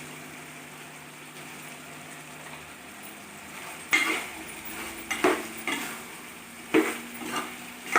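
Chicken pieces frying in oil with chilli and spice powders, sizzling steadily. From about halfway through, a spatula stirs through them, scraping and knocking against the pan several times.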